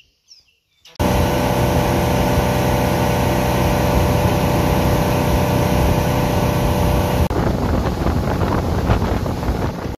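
Motorboat engine running at speed, with water rushing in the wake, loud and steady. About seven seconds in it changes abruptly to a rougher, choppier mix of engine and rushing air.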